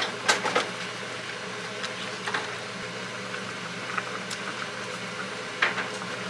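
A pot of stew bubbling at the boil on an electric cooktop over a steady low hum, with a few light knocks of a ladle against the pot, two near the start and one just before the end.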